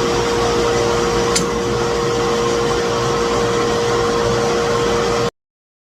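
Woodworking shop machine running steadily with a constant humming tone over a whir, with a faint tick about a second and a half in. It stops abruptly near the end.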